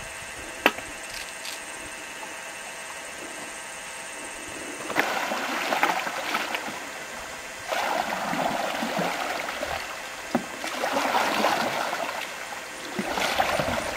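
Canoe paddles splashing and swishing through lake water, in surges a couple of seconds apart that begin about five seconds in. Before that there is only a faint hiss with one sharp click about a second in.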